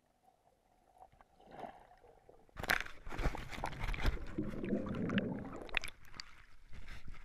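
Water sloshing and splashing close to the microphone, with gurgling. It starts suddenly about two and a half seconds in, after a near-silent start, and carries on unevenly with splashy knocks.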